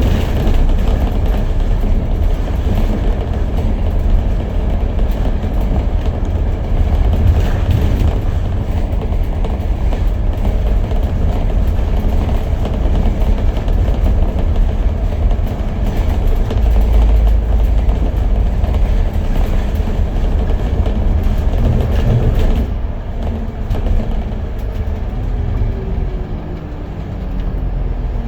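Bus running at speed, heard from on board: a heavy steady rumble of engine and road noise. Near the end it quietens and the engine note falls in pitch as the bus slows.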